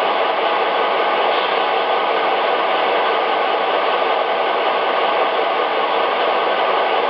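Steady, noisy diesel idle sound from the onboard ProtoSound 2.0 speakers of MTH Premier O-gauge model diesel locomotives, holding at an even level.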